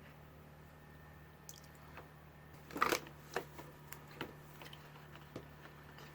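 Scattered light clicks and knocks from soap-making gear being handled, the loudest cluster about three seconds in, over a faint steady hum.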